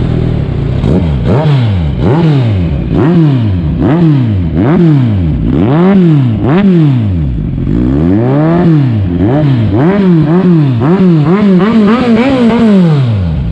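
Kawasaki Z1000 inline-four engine revved again and again through a Yoshimura Alpha slip-on silencer held by hand to the exhaust link pipe, the note rising and falling once or twice a second. There is a short pause about seven seconds in, then quicker throttle blips.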